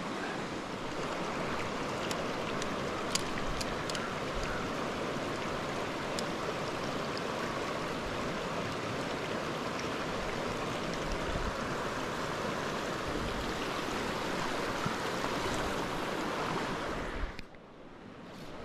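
Shallow mountain stream rushing steadily over rocks in a riffle, with a few faint ticks. Near the end the sound drops abruptly to a much quieter level.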